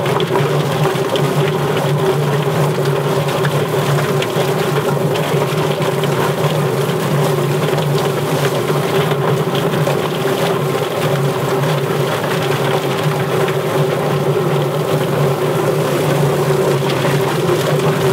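Yardbird mechanical chicken plucker's electric motor running with a steady hum, the spinning drum tumbling a Cornish Cross carcass against its rubber plucking fingers.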